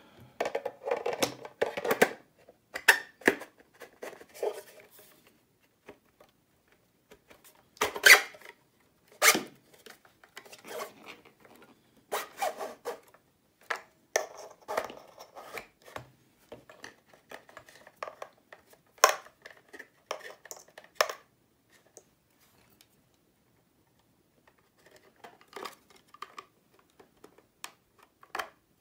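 Handling noise of a metal power supply unit being fitted into a 3D-printed plastic box: irregular clicks, knocks and scraping of metal and plastic. It falls quiet for a few seconds near the end before a few more clicks.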